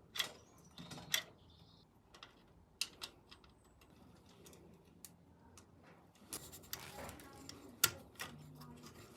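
Irregular clicks and light taps of hand work on the quad bike's parking brake parts, with a brief scrape or rustle past the middle.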